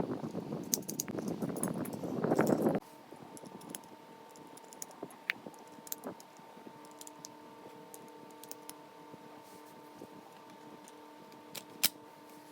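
Scattered sharp plastic clicks and rattles from handling a toy Colt 1911 shell-ejecting pistol. A louder noisy background cuts off abruptly about three seconds in, leaving a faint steady hum under the clicks.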